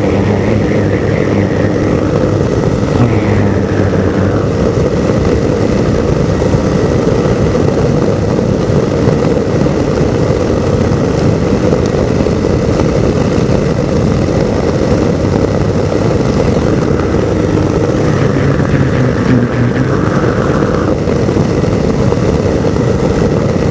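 Two-stroke ultralight aircraft engine and propeller droning steadily in flight. The pitch falls briefly about three to four seconds in, and the sound otherwise holds even.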